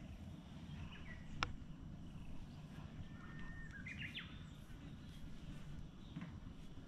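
Wild birds chirping, with a short run of calls about three to four seconds in, over a low background rumble. A single sharp click about a second and a half in is the loudest sound.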